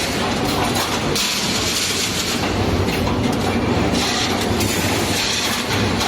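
CNC rebar stirrup bending machine running, feeding and bending steel wire: a steady loud mechanical rattle and rumble, with stretches of hiss about a second long that come and go.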